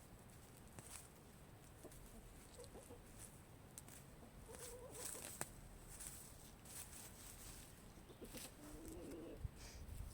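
Hens clucking faintly, a few short low calls in small clusters, with scattered soft clicks.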